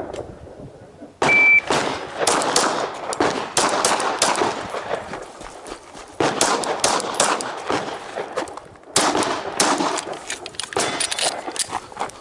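Shot timer beeps once, briefly, about a second in, then gunshots follow in fast strings, with short pauses, as the shooter fires a timed course of fire.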